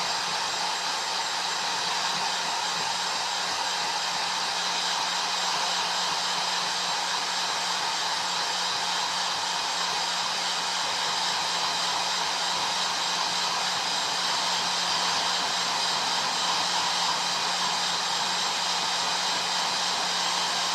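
Hair dryer running steadily: an even rush of blown air with a low, steady motor hum underneath.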